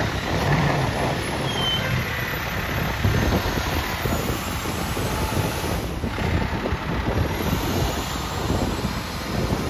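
Fire rescue truck's diesel engine running steadily as the truck moves slowly past at low speed, a continuous low rumble.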